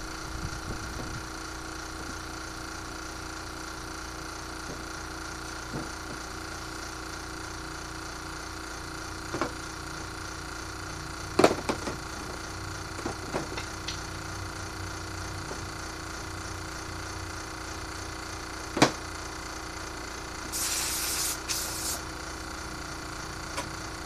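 Steady machine hum with several fixed tones. Over it come a few sharp knocks of tools and parts set down on a wooden table, the loudest about halfway and again later, and two short hisses near the end.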